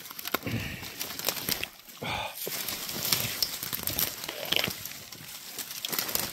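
Footsteps crunching and crackling through dry leaves and underbrush while scrambling down a steep embankment, with many small irregular snaps and rustles.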